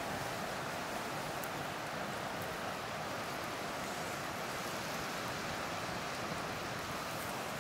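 Steady, even rushing noise, with a few faint high ticks.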